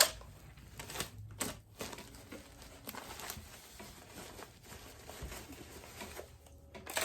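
Wrapping material crinkling and rustling as it is handled around a small fan, with a few light knocks. A louder rustle comes right at the end.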